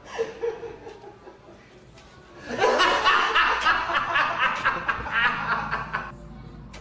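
A person laughing heartily for about three and a half seconds, starting about two and a half seconds in, after a brief spoken sound at the start.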